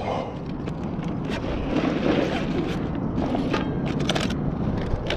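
Steady low rumble with scattered light clicks and rustles of fishing gear being handled close to the microphone as pliers are dug out.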